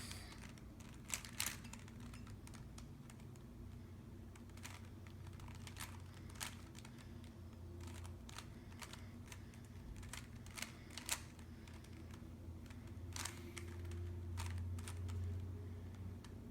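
Rubik's Cube faces being turned by hand: scattered sharp plastic clicks at irregular intervals, over a low steady hum.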